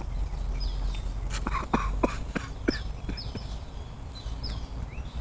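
A bird calling again and again with short falling chirps, over a run of sharp clicks around the middle and a low steady rumble.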